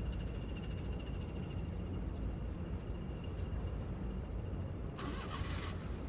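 A steady low engine rumble with a faint high whine in the first seconds, and a brief hiss about five seconds in.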